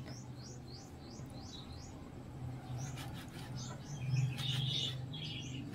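Small birds chirping: a run of quick, high, rising chirps, then more chirping and chatter from about three seconds in, over a steady low hum. A few sharp taps of a knife on a plastic cutting board near the middle.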